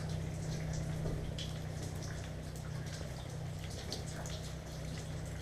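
Quiet room tone: a steady low hum with faint, irregular ticks scattered through it.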